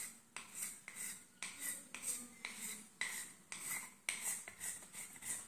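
An old scissor blade scraping along the sharp edge of a new carrom striker in short, repeated rasping strokes, about two a second, shaving the rim smooth.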